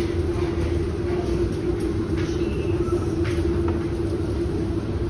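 Steady low machinery hum and rumble with one constant tone, and a few faint clicks over it.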